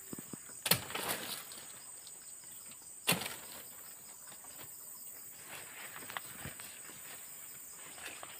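Two sharp machete strikes on a woody stem, about two and a half seconds apart, with a few lighter knocks between. A steady high insect buzz runs underneath.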